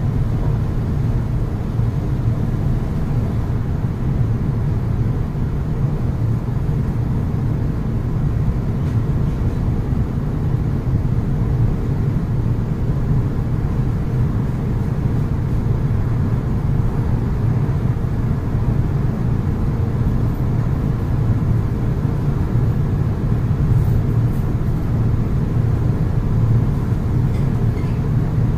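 Steady low rumble and hum inside the cabin of an Iyo Railway 2000 series tram, a former Kyoto City tram.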